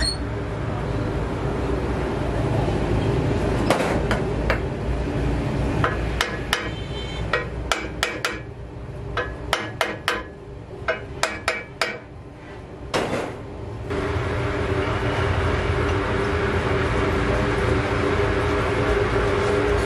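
Metal lathe with a truck clutch flywheel mounted, running with a steady hum. In the middle comes a series of about a dozen sharp, ringing metal knocks while the machine noise falls away. Then the lathe's steady hum returns.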